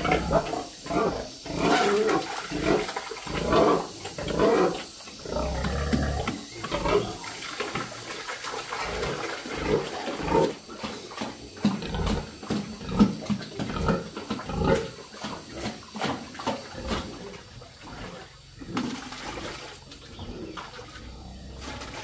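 Domestic pigs grunting loudly as wet, cooked feed is ladled into their concrete trough, then eating noisily, slurping and smacking the liquid feed.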